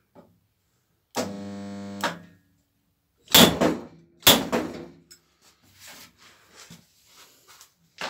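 A homemade spotter built from microwave-oven transformers buzzes steadily for about a second as it welds onto the door's steel panel. Then the slide hammer gives two loud sharp knocks about a second apart, pulling the welded seam straight. Faint light clicks follow.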